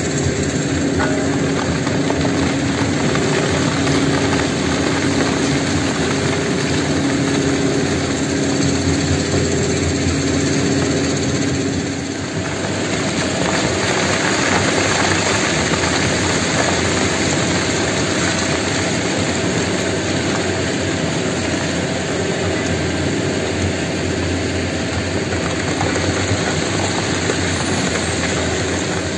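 Heavy quarry machinery running steadily with a humming drone. About twelve seconds in, the hum gives way to a continuous rushing of loose rock and soil pouring down the quarry face from above.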